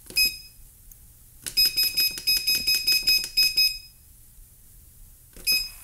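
Microwave oven keypad beeping as a 10-minute timer is set: one beep, then a quick run of about a dozen beeps, about five a second, and a last single beep near the end.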